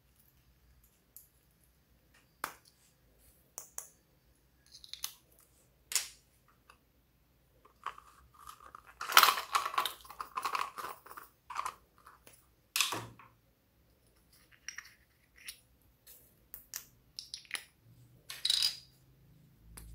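Small plastic glitter containers being handled, with sharp clicks and taps of lids and pots, and a busier rattling stretch about eight to eleven seconds in as glitter and sprinkles are shaken out of a container.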